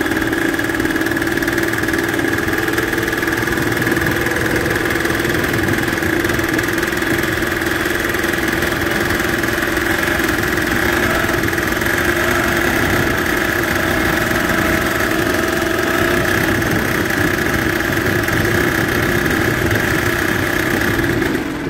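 Two-stroke paramotor engine, just started, idling steadily and purring on a rich 3.5% oil break-in mix. Through its clutch and gear reduction the propeller barely turns at this idle.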